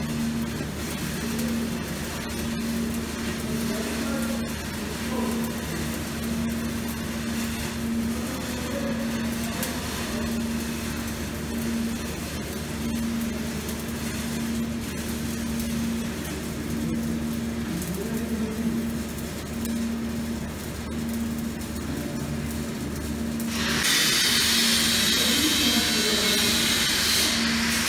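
Stick-welding arc crackling steadily as a 7018 electrode lays a cap pass on steel pipe, over a low hum that pulses on and off. Near the end the crackle abruptly gets louder and hissier.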